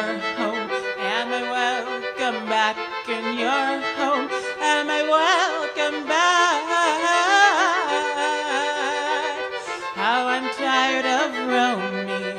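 A woman's singing voice with vibrato, strongest in the middle of the stretch, over sustained, layered violin chords and a low line that steps between notes. The violin is a playback loop, not live bowing.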